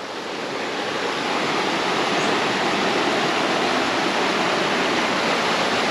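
Waterfall: water rushing and splashing over rocks in a steady roar of white noise, growing louder over the first two seconds and then holding steady.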